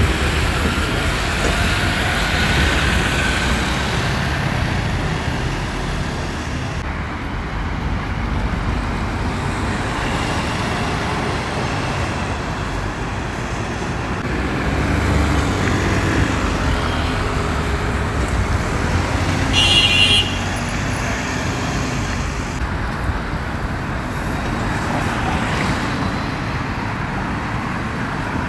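Busy urban road traffic: double-decker buses and cars passing with a steady engine and tyre rumble. A brief high-pitched tone cuts through about two-thirds of the way in.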